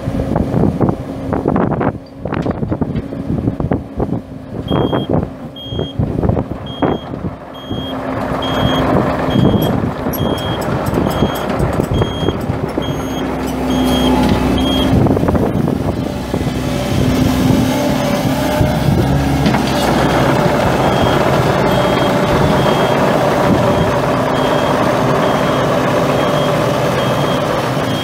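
Mini excavator's four-cylinder turbo diesel running under load, getting louder about eight seconds in and again midway, with knocks and clanks of the machine in the first few seconds. Over it the travel alarm beeps a bit more than once a second, first clearly and then fainter in the second half, the sign that the machine is tracking.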